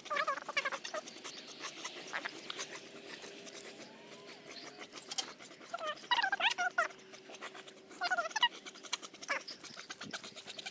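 A dog whining in short, rising yelps, in bursts about a second in, around six seconds and again around eight seconds.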